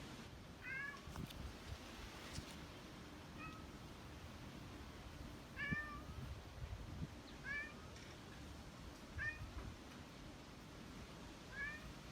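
Domestic cat meowing: six short, faint meows, one every one to two seconds.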